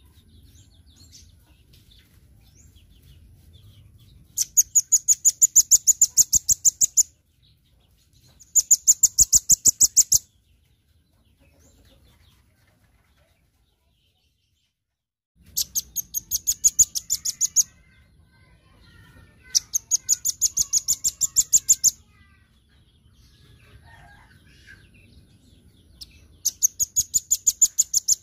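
Velvet-fronted nuthatch calling in high, rapid trills of sharp repeated notes, about ten a second, in five bursts of two to three seconds each with pauses between.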